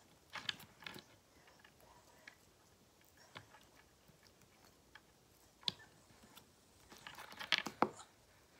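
Homemade slime being stretched and pulled apart by hand close to the microphone, giving scattered wet clicks and crackles, with a quicker run of them near the end.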